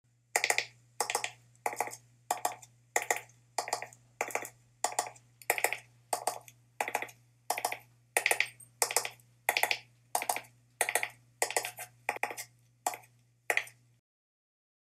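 Footsteps dubbed over the animation at a steady walking pace, about three steps every two seconds, over a faint low hum. The steps stop near the end.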